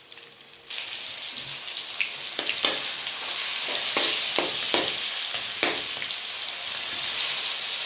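Food frying in hot oil in a pan: the sizzling starts suddenly less than a second in, as if something was just put into the oil, and runs steadily on with repeated short scrapes of a spoon stirring in the pan.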